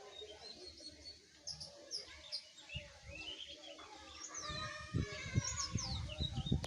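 Songbirds chirping and calling outdoors, many short high chirps and quick falling whistles. A low rumble with a few knocks comes in about two-thirds of the way through.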